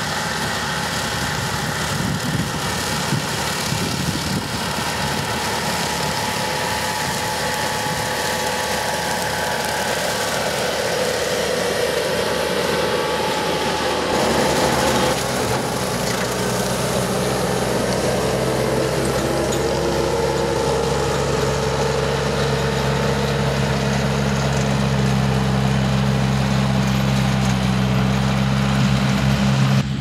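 Bobcat compact track loader's diesel engine running under load while its hydraulic rotary brush cutter spins, shredding tall grass and weeds. About halfway through the sound settles into a steadier, more clearly pitched engine hum.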